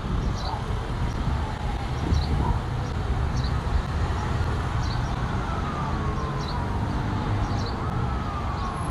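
Emergency vehicle siren wailing, its pitch slowly rising and falling, over a steady low rumble. A short high chirp repeats about once a second.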